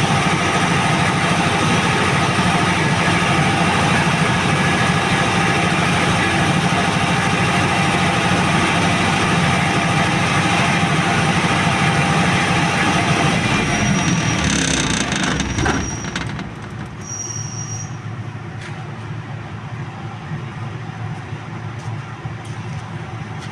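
Tsuzumi TDG 62.5 kVA diesel generator's four-cylinder turbo 4108ZD engine running steadily at a loud, even level. About fifteen seconds in there is a short knock, and the sound then drops to a noticeably quieter steady running.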